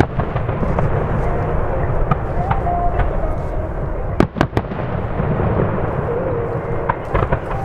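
Fireworks display: shells bursting in a continuous low rumble of booms, with sharp cracks, two in quick succession about four seconds in.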